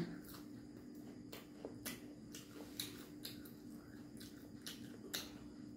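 Faint, crisp crunching of a deep-fried cabbage pakora being chewed, short irregular crackles two or three times a second.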